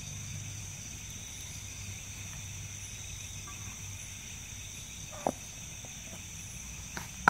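Steady night chorus of crickets and other insects, a continuous high trilling. A couple of short sharp clicks come about five and seven seconds in.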